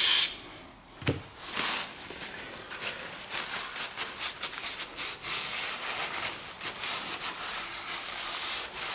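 A burst of aerosol cleaner spray cuts off just after the start. A short knock comes about a second in, then repeated rubbing strokes as oil is wiped and scrubbed off an engine piston.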